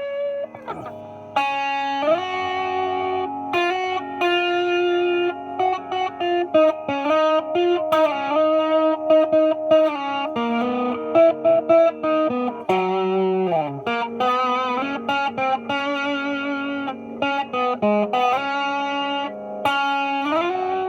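Epiphone 1959 Les Paul Standard electric guitar played through an amp's clean channel pushed by a Tube Screamer overdrive pedal. It plays a lead line of held notes with bends, and slides down about 13 seconds in.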